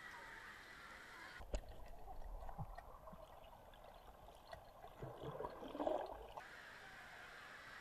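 Pool water heard by a microphone that dips under the surface: splashing wash, then about a second and a half in the sound turns suddenly muffled, with bubbling and gurgling that is loudest around five to six seconds in. Near the end it comes back up into the open splashing.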